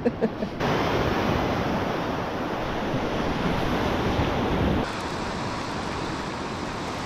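Ocean surf breaking and washing up over the shallows, with wind on the microphone. It starts abruptly about half a second in.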